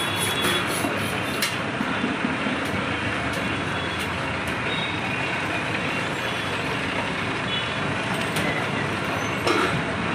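Steady loud street noise of engines and traffic, with a few sharp clicks in the first second or so and again near the end.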